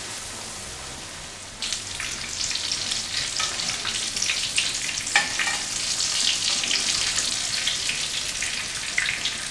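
Breaded chicken cutlets shallow-frying in hot oil in a frying pan, a steady sizzle full of small crackles, as they are turned with metal tongs. The sizzle grows suddenly louder about a second and a half in.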